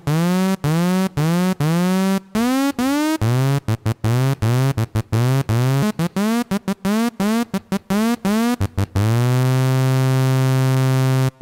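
Massive software synthesizer playing a repeated low note on a patch with a pitch envelope, each note swooping up in pitch as it starts. The notes come quicker and shorter in the middle, then one long note is held near the end.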